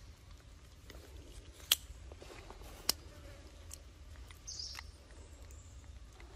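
Quiet outdoor forest ambience over a steady low rumble, broken by two sharp clicks a little over a second apart and, later, one short high chirp.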